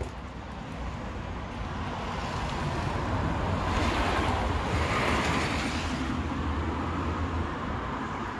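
A vehicle passing on the street: a rushing noise that swells over a few seconds, is loudest around the middle, then fades, over a steady low rumble.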